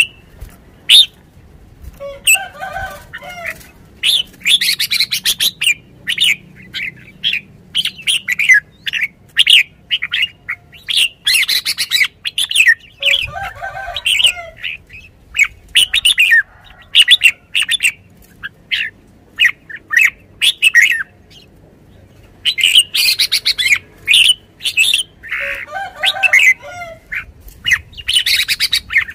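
Caged red-whiskered bulbul singing and calling: rapid runs of short, sharp chirping notes repeated throughout, with a few lower, rougher calls in between.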